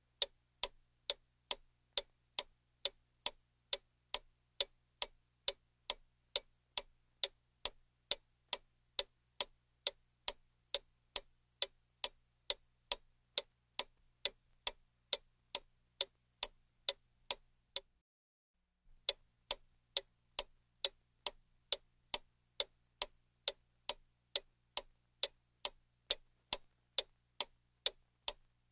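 Clock ticking steadily, about two ticks a second, with a brief break of about a second partway through.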